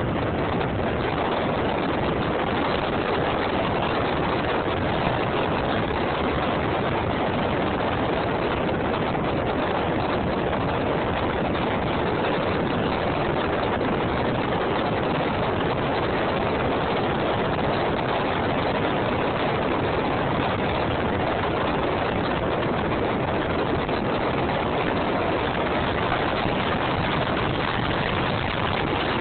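Ultralight aircraft in flight: its engine and propeller blend with the rush of air into one loud, steady drone that never changes.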